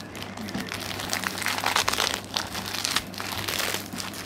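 Plastic packet of Mamee Monster dried noodle snack being squeezed and crushed by hand, crinkling irregularly as the noodles inside are broken up.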